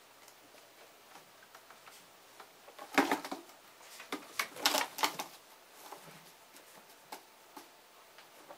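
A cat's claws scratching and catching on a cat tower's sisal-rope post as it climbs, in two short rapid bursts, about three seconds in and again around five seconds, with a few faint ticks between.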